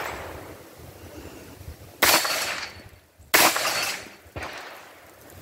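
Two gunshots from a 9mm AR-15 short-barreled rifle, a little over a second apart, each ringing off in a short echo, with a fainter crack about a second after the second shot.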